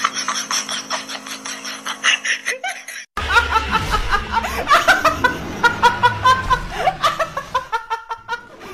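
A young woman laughing hard in quick, pitched bursts, starting abruptly about three seconds in after a brief dropout. Before that comes a fast run of short, laugh-like pulses.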